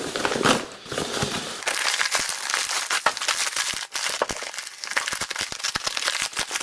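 Parcel packaging unwrapped by hand: a plastic postal bag, then brown paper wrapping and clear plastic inside it, crinkling and crumpling in a dense run of sharp crackles and rustles.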